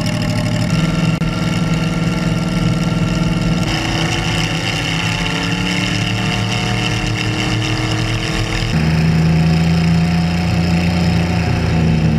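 Chevrolet LS3 V8 engine driving a light aircraft's propeller, running steadily at power for the takeoff. The sound changes abruptly twice, about a third and about two-thirds of the way in, with the pitch edging up slightly in between.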